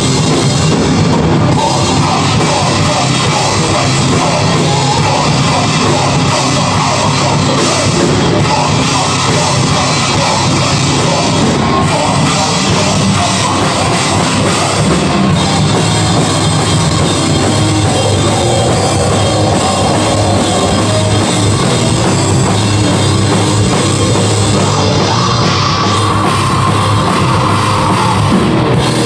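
Heavy metal band playing live on drum kit and electric guitar, loud and steady.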